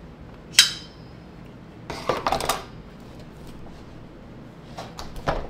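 Handling sounds from a stainless-steel lever ice cream scoop: a sharp metallic click with a brief ring about half a second in, then a short burst of scraping and rustling around two seconds in. A few light clicks near the end as the lid is pressed back onto a plastic ice cream tub.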